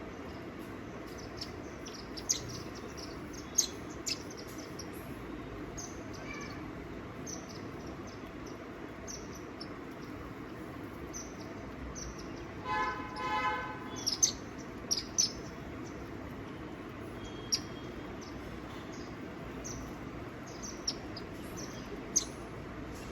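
Small birds chirping, with short, sharp high calls scattered through the whole stretch over a steady low background hum. About halfway through, a brief honk-like tone with several overtones sounds for about a second and a half.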